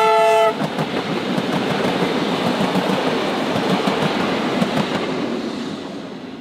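Train horn chord that cuts off about half a second in. It gives way to a heritage passenger train's carriages rolling past, wheels clacking over the rail joints, the sound fading as the train moves away.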